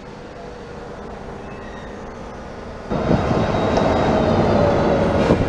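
Railway coaches rolling slowly with a low rumble and a faint steady tone. About three seconds in, the sound jumps louder to an electric locomotive's running noise: a steady drone with a slowly falling whine.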